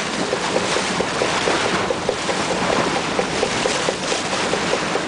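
Water rushing past the hull of a moving boat, with wind buffeting the microphone and a low steady hum underneath.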